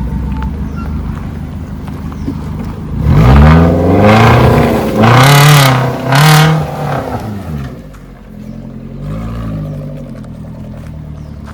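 An off-road 4x4's engine revving hard in several rising and falling surges a few seconds in, then settling, with one smaller rev near the end.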